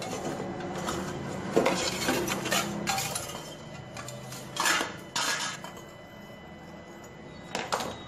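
Pliers clinking and scraping against copper refrigerant tubing at a refrigerator's compressor, with a handful of sharp metallic clanks spread through, over a low steady hum.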